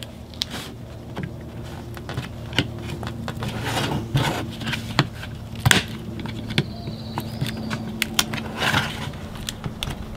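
Flat-blade screwdriver prying at the pre-cut seam of a plastic USB power-bank case: irregular clicks, knocks and scrapes of the metal blade on the plastic.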